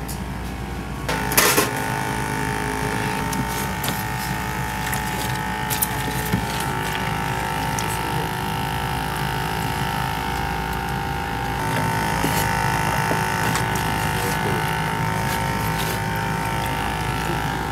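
Steady mechanical hum of kitchen equipment, joined about a second in by a steady mid-pitched whine, with a short clatter at that point and a few light knocks later.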